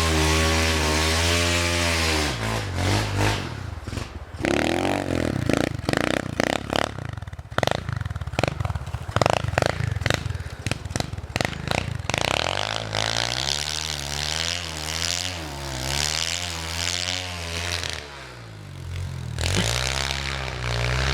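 Small dirt bike engine revving and bogging as it churns through deep snow. The engine note rises and falls unsteadily, with choppy, uneven bursts through the middle stretch.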